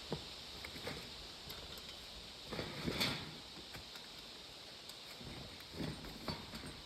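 A few irregular knocks and thuds, the loudest cluster near the middle and two more near the end, over a steady faint hiss.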